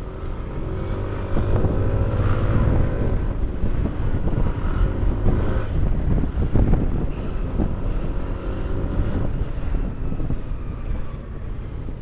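Yamaha NMAX 155 scooter engine with a modified exhaust, its note rising as it pulls ahead a second or so in, then running at low speed. Wind rumbles on the microphone throughout.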